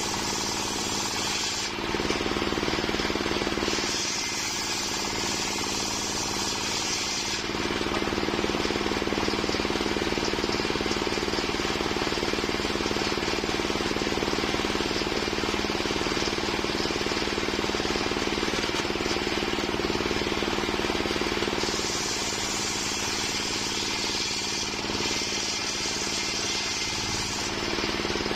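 Homemade circular-saw sawmill running steadily while sawing waru wood, with a constant machine hum and a higher, hissing cutting sound that comes and goes several times.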